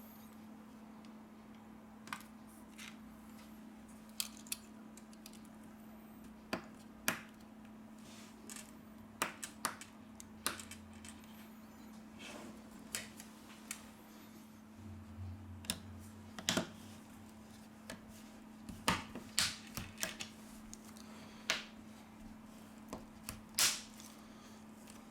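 Irregular light clicks and taps of tools and small parts on a Samsung Galaxy A31 smartphone as it is reassembled, the sharpest ones coming in the last few seconds, over a steady low hum.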